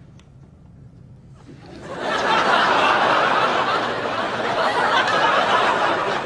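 A crowd laughing together. It swells up about a second and a half in and then holds.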